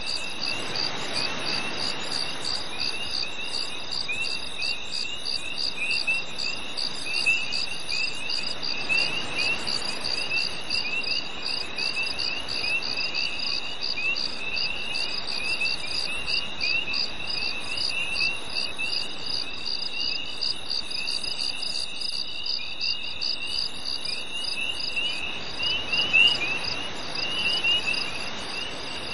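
A summer-night chorus of crickets: one insect gives an unbroken high trill, another pulses at an even rhythm above it, and short repeated chirps sound just below, over a soft steady hiss.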